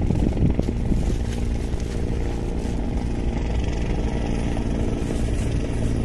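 Steady, even drone of an engine running at a constant speed, with a few light knocks in the first second.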